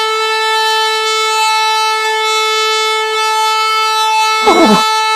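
A horn blowing one long, steady note, held for about six seconds. Near the end a brief wavering sound passes over it.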